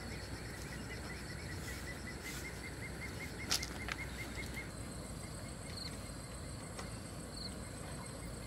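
Rural outdoor ambience: a fast, even run of small chirps, about five a second, from an unseen insect or bird, which stops a little past halfway. There are two sharp clicks just before it stops, and after it a few scattered higher chirps and a faint steady high whine.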